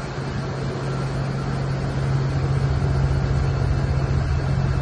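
Steady low machinery drone, one unbroken hum under a rumbling rush of noise, offshore by a production platform.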